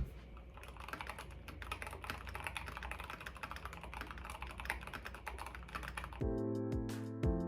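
Fast typing on a mechanical keyboard: a dense, irregular run of quick key clicks. Near the end the typing stops and music comes in.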